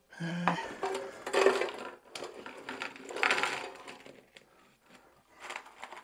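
Cooked thin chips tipped out of an air fryer's non-stick basket onto a plate, clattering and scraping in two main bursts, about one and a half and three seconds in.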